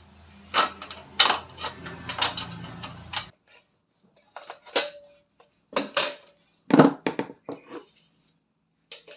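A run of sharp clinks and knocks of hard objects being handled, over a low steady hum that stops abruptly about three seconds in; after that the knocks come a few at a time, more widely spaced.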